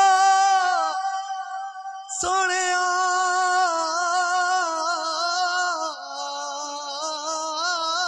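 A man singing a naat unaccompanied into a microphone. He holds a long note on "Allah" that slides down, then after a short break about two seconds in he sings a wavering, ornamented phrase.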